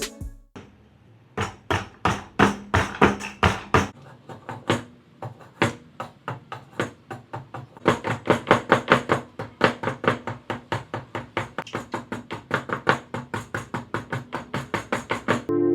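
Repeated sharp knocks of a hand tool striking bamboo: spaced strikes at first, then a quicker, even run of about four a second from about halfway.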